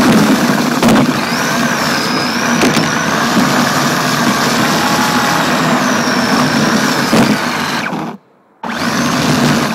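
RC drift car heard from a camera mounted on it: the motor's high whine rises and falls over steady driving noise, with a few knocks. The sound cuts out for a moment near the end.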